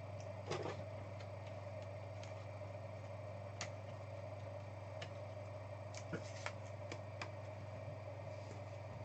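A few faint, irregular clicks and taps of trading cards and packs being handled on a table, a little more often in the second half, over a steady low hum.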